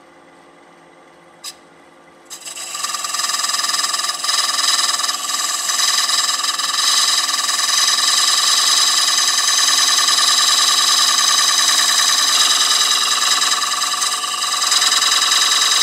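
A turning tool cutting beads into a spinning maple platter on a wood lathe: a loud, steady scraping with a high ringing that comes in about two and a half seconds in and holds. It follows a quieter stretch with a single click.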